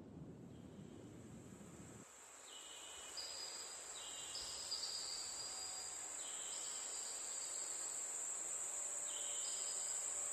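Insects chirring: a steady high drone with overlapping higher trills that come and go every second or two. A low rumbling noise underneath cuts off about two seconds in.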